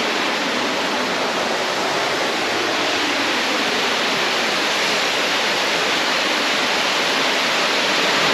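Waterfall on a rainforest creek: a loud, steady rush of falling water.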